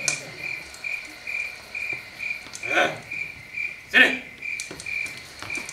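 Crickets chirping in an even pulse about twice a second, a night-time ambience, with two short louder calls breaking in around the middle.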